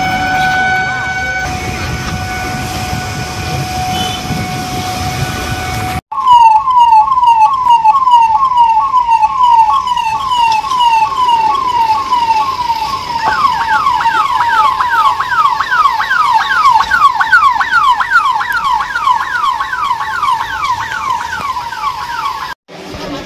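Electronic siren on a fire and emergency services vehicle, giving a fast repeating wail of about two sweeps a second that quickens after about thirteen seconds. It follows a few seconds of a steady held tone and breaks off suddenly near the end.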